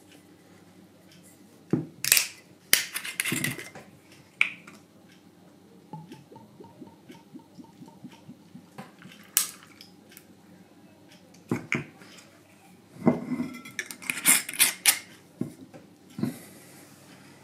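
Whisky poured from a glass bottle over ice cubes in a glass tumbler: a quiet pour in the middle, with sharp clinks and knocks of glass and ice scattered through. The clinks bunch together near the start and again about two thirds of the way in.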